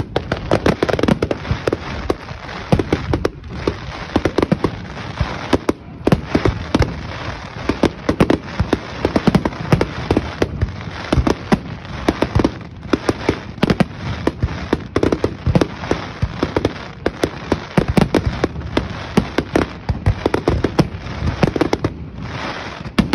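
Aerial fireworks display in a dense barrage: shells launching and bursting in quick succession, several sharp bangs a second.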